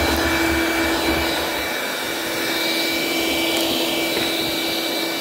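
DeWalt 20V MAX cordless handheld vacuum running steadily: a constant motor whine over the rush of air as its hose nozzle sucks up white dust and debris from a board.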